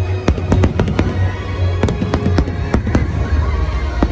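Aerial fireworks bursting in quick, irregular succession: many sharp bangs, some close together and some spaced out, with music playing underneath.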